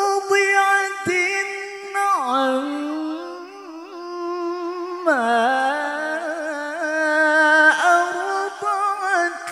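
A male Qur'an reciter's voice through a microphone, holding long ornamented notes in melodic tilawah style. The held pitch bends down about two seconds in and again about five seconds in, then climbs back up.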